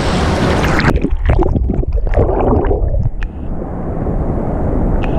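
Rushing whitewater of a waterfall cascade close to a waterproof action camera's microphone. About a second in, the sound turns suddenly muffled, with gurgling and bubbling as the camera meets the water's surface, then settles into a dull, low rush.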